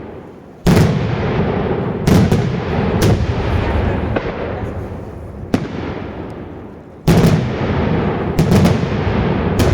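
Daytime fireworks shells bursting in the air: about eight sharp, loud booms, the biggest near the start, about two seconds in and about seven seconds in, each followed by a long rolling rumble as the blast echoes away.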